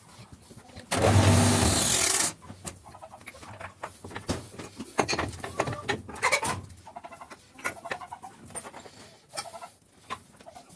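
A loud burst of machine noise with a low hum, lasting about a second, followed by scattered knocks and clicks of workshop handling.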